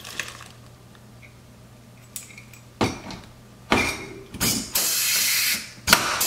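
Pneumatic blind-rivet gun setting a 3/16 in rivet: after a quiet start come a few short bursts of air, then a steady loud hiss of about a second. A sharp snap follows near the end as the rivet's mandrel breaks, and the air hiss starts again.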